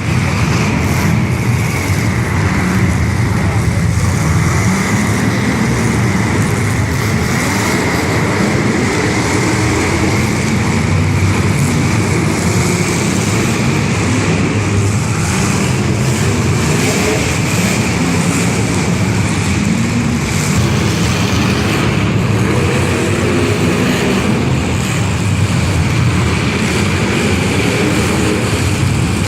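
Demolition derby cars' engines running and revving together, loud and continuous. Voices are mixed in underneath.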